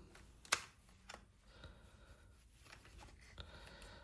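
Plastic clicks and faint scraping as the clipped plastic parts of a Meta Quest 3 VR headset are handled and prised apart: one sharp click about half a second in and a softer one about a second later.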